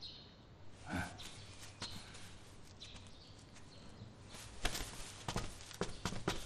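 Footsteps on a floor: a run of light steps starting about two-thirds of the way in, as people walk away across the room.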